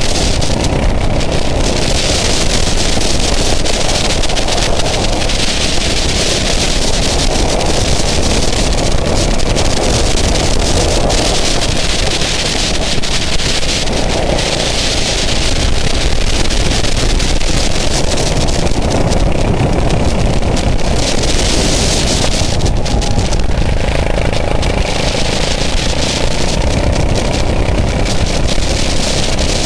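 Go-kart engine running at racing speed on track, mixed with heavy wind noise on the onboard camera's microphone, at a steady level.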